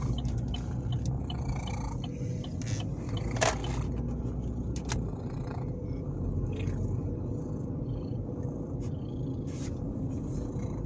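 Inside a moving car: a steady low rumble of road and engine noise, with a few scattered clicks and taps, the sharpest about three and a half seconds in.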